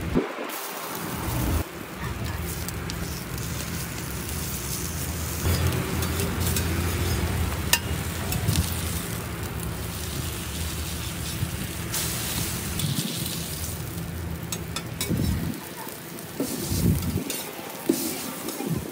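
Egg, ham and bacon sizzling on a hot flat-top griddle, with clicks and scrapes of a metal spatula on the plate. A steady low hum runs underneath.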